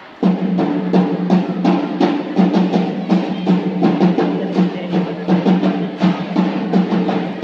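Drums strike up just after the start and keep a fast, steady rhythmic beat, with bass and snare drums in the mix, typical of a cheer squad's drum section.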